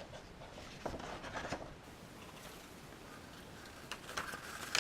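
Paper instruction booklet being handled and leafed through, with faint short rustles and clicks about a second in and again near the end.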